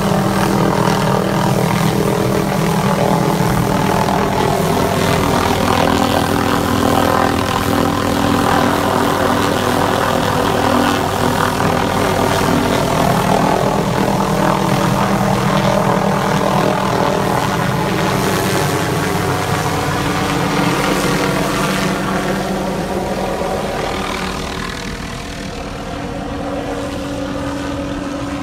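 Helicopter carrying a hanging aerial tree-trimming saw, its rotor and engine running loud and steady. The sound grows quieter about 23 seconds in, and a steadier, higher tone carries on to the end.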